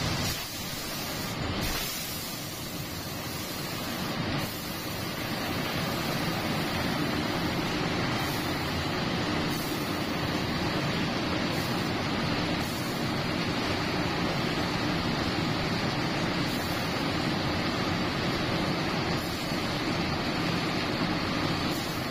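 Open-type reciprocating refrigeration compressor of an air blast freezer and its large electric drive motor running steadily, a constant mechanical hum under an even hiss.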